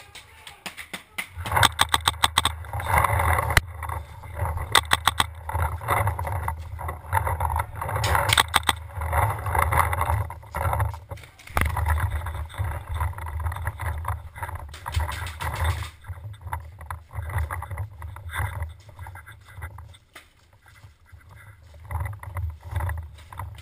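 Paintball markers firing in rapid bursts of sharp pops, several times, over the crunch and rustle of a player moving on gravel.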